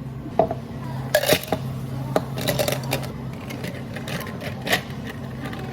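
Dishes and utensils clinking and clattering in a string of short knocks, over a steady low hum of café equipment.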